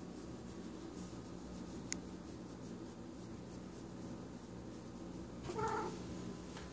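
A cat gives one short meow about five and a half seconds in, over the soft scratchy rustle of a hand stroking fur. A low steady hum sits underneath, and a single light click comes about two seconds in.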